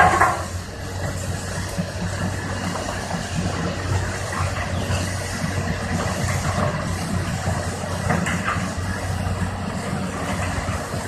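CAT 320D tracked excavator's six-cylinder diesel running steadily as its bucket works among broken concrete slabs. A brief louder clatter of concrete comes right at the start, and a few fainter scrapes follow.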